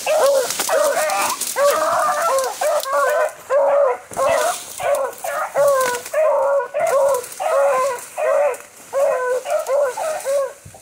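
Beagle hounds in full cry on a trail: a steady string of short, arched yelps, more than one voice overlapping. They cut off suddenly at the end.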